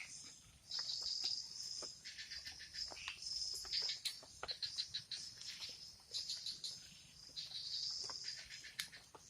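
Insects, crickets or similar, chirping in high-pitched pulsed trills that come in bouts of about a second, with scattered sharp clicks between them.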